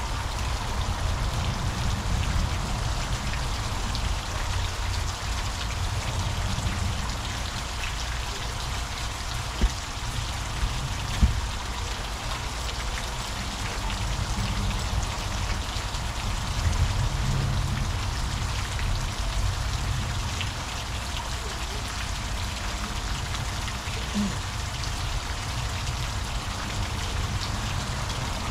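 Hot tub water running: a steady splashing rush over a low rumble, with two sharp knocks about ten and eleven seconds in.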